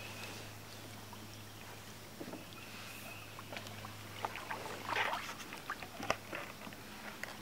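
Kayak paddling: double-bladed paddles dipping and swishing through shallow water, with drips and scattered small clicks, and one louder swish about five seconds in.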